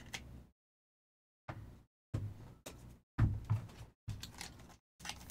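Trading cards and packs handled on a tabletop: a run of soft knocks, taps and clicks, the loudest about three seconds in. Each burst cuts off abruptly to silence between handlings.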